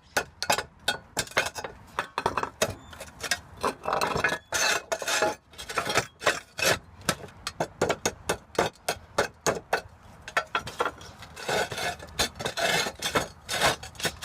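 Claw of a hammer chipping and scraping at the underside of a roof tile: many quick, sharp knocks, with stretches of scraping about a third of the way in and again near the end.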